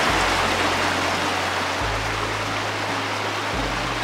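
Creek water running steadily over rocks, with soft background music holding low notes that change every couple of seconds.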